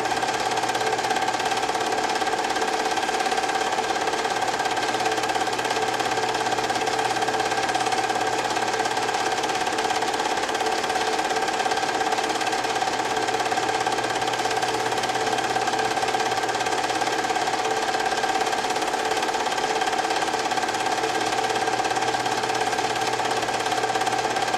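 Home-movie film projector running: a steady mechanical whirr with a fast, even clatter from the film-advance mechanism, unchanging throughout.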